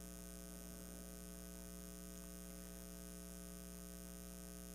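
Faint, steady electrical mains hum from the recording's audio chain: a constant low buzz with several fixed tones, unchanging throughout.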